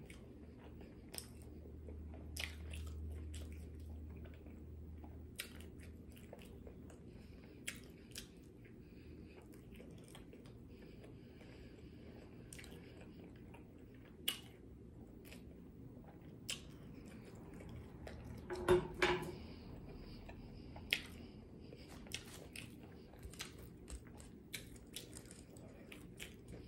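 Close-miked chewing and biting of buffalo boneless wings and seasoned fries: wet mouth smacks and short clicks come at irregular moments. A cluster of louder smacks comes about 19 seconds in.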